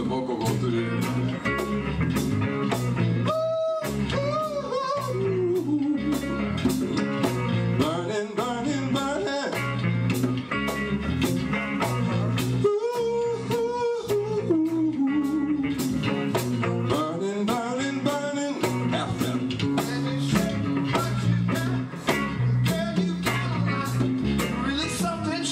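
Live band playing a funk-rock song: electric bass, an electric guitar holding long bent notes, and a steady percussion beat.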